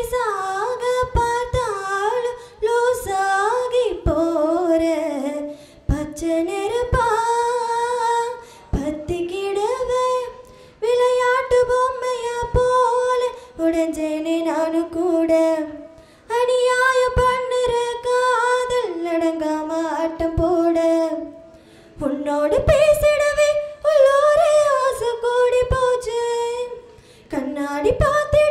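A young girl singing solo and unaccompanied into a handheld microphone, in phrases of held notes that step up and down, with short breaks for breath every two to three seconds.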